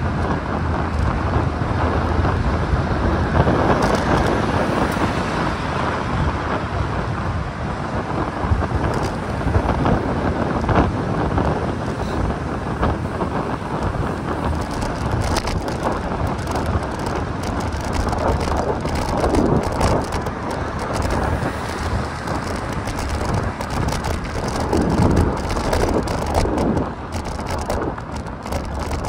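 Wind rushing over the camera's microphone while riding a bicycle: a steady, noisy rumble that swells now and then.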